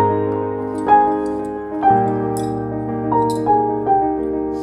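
Background piano music: notes and chords struck about once a second, each ringing out and fading.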